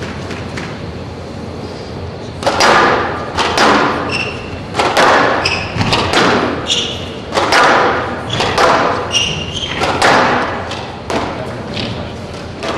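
Squash ball cracking off racquets and the court walls in a fast rally, about one hit a second after a quieter opening, each hit echoing in the hall. Short high squeaks of shoes on the court floor come between the hits.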